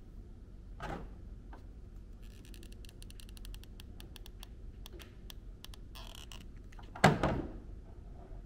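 Handling noises from hot-gluing rabbit fur onto a lion dance head: small clicks and rustles, a quick run of clicks a few seconds in, and one sharp knock about seven seconds in.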